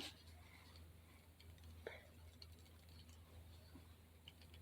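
Near silence: room tone with a low steady hum and one faint click about two seconds in.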